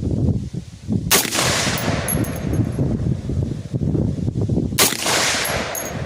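Two rifle shots from an AR-15 chambered in 350 Legend, nearly four seconds apart, each followed by a fading echo, over a constant low rumble.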